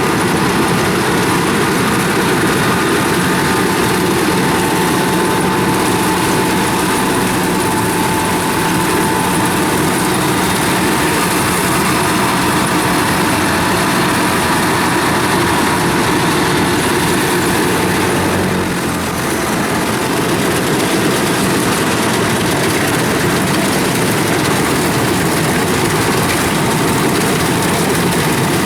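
Heavy farm machinery engine running steadily under load. The level dips briefly about nineteen seconds in.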